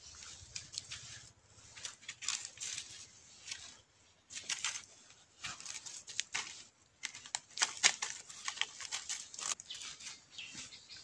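Irregular rustling and crackling of dry leaves and loose soil under a rabbit's hopping feet, coming in short clusters with brief pauses between.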